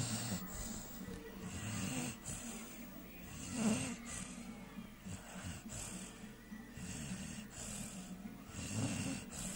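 Three-month-old American Staffordshire Terrier puppy snoring in its sleep, a rhythmic snore with each breath about every second.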